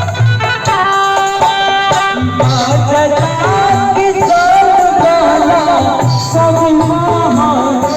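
Loud Indian folk-style song: a singing voice over a melody line and a pulsing drum beat, with the voice coming in about two and a half seconds in.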